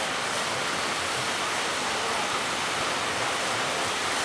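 Surf breaking along the shore, a steady rushing noise without let-up.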